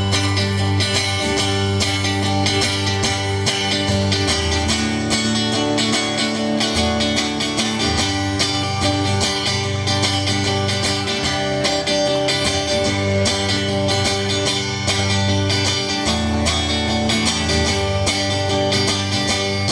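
A live band playing an instrumental lead-in with no singing: strummed guitar over shifting low notes, keeping a regular rhythm.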